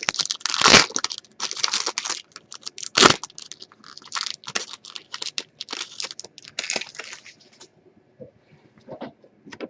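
A foil trading-card pack wrapper being torn open and crinkled, an irregular rustling with a sharp snap about three seconds in. The rustling stops near the end, leaving a few faint clicks.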